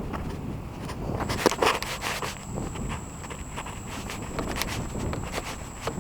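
Footsteps of a person walking on a hard surface, about two steps a second, over a low steady rumble.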